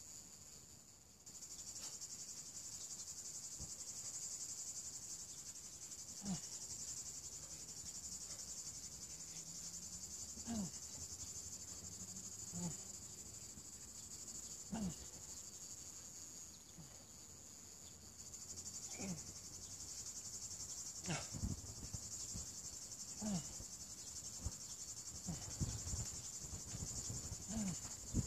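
Steady high-pitched chirring of insects. Over it, short, forceful exhalations come about every two seconds from a man lifting a kettlebell in a long-cycle set.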